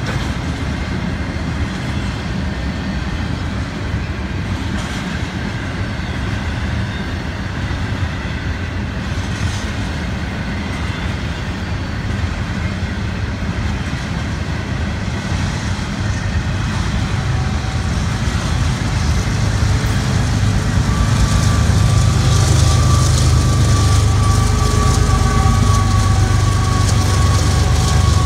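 Double-stack intermodal freight train rolling past, its steel wheels clattering steadily over the rail joints. About two-thirds of the way in, the sound grows louder with a deeper rumble and a steady whine as a mid-train CSX diesel locomotive draws near.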